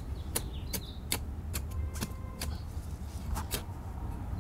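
Hand trowel digging into dry garden soil: a run of short, irregular scrapes and stabs, about two or three a second, with faint bird chirps behind.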